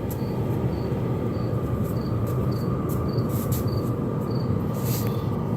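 LF Bros N2 diesel air heater running steadily: an even blower and burner noise with a low hum, and a faint short high chirp repeating about twice a second.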